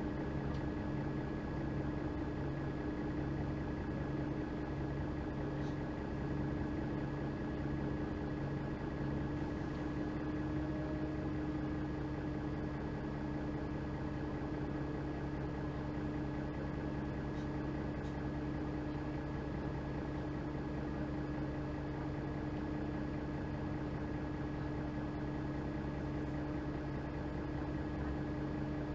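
Diesel engine of a 2003 Mercedes-Benz O530 Citaro Ü bus idling steadily, heard from inside the passenger cabin.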